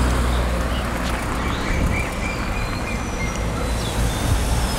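Outdoor street ambience: steady traffic noise with a low rumble, and a few short high chirps near the middle.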